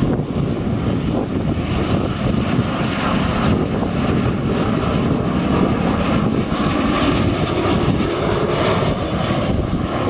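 Airliner engines running steadily, a loud rumble with a faint steady whine; the hiss grows stronger about two seconds in.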